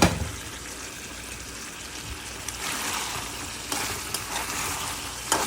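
Dried fish frying in spiced oil in a pan: a steady sizzle, with a sharp clank on the pan at the start and a couple of short spatula knocks later on.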